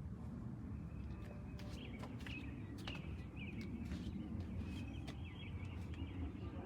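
Faint, repeated small-bird chirps over a low steady rumble, with scattered soft clicks.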